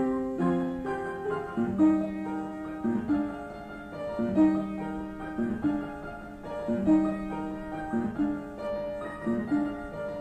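Solo piano playing a classical piece at a moderate tempo. Held chords in the middle register are struck again about every two and a half seconds beneath a lighter upper line.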